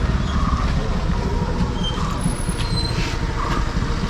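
Safari jeep in motion: a steady, loud low rumble of engine and road noise, with some rattling and clattering over the track.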